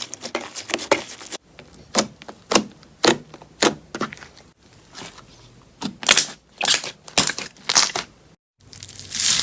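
Slime being pressed and squeezed by hand, giving a run of sharp crackling pops and clicks, irregular, about two a second. The sound drops out briefly a few times where one clip cuts to the next.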